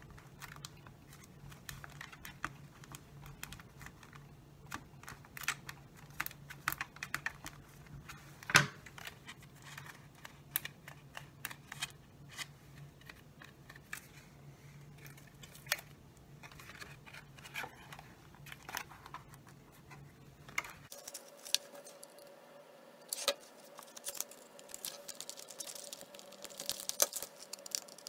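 Scattered light clicks and taps of thin plastic soda-bottle pieces being handled and pressed together during gluing, with one louder knock about eight seconds in. A low steady hum runs underneath and stops about two-thirds of the way through.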